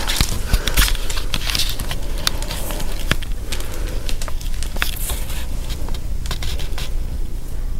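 Irregular crackling and rustling with scattered sharp clicks over a steady low hum.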